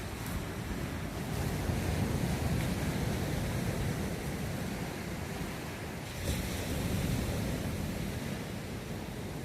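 Atlantic Ocean surf breaking on the beach, a steady wash that swells twice as waves come in.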